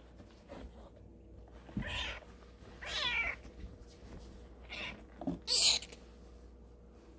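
Young kitten mewing: about four short, high cries spread over several seconds.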